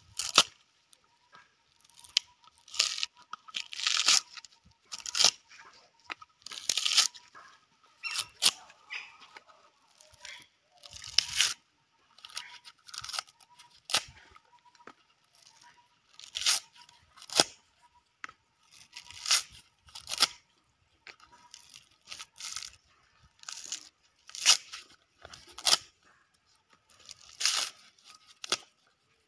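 Coconut husk being torn off with the teeth: repeated sharp ripping and crunching of the dry fibres, in short irregular bursts with brief pauses between pulls.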